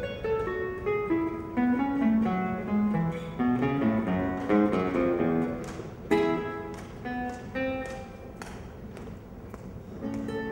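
Acoustic guitar playing quick runs of single plucked notes, with a few sharp strummed strokes about halfway through.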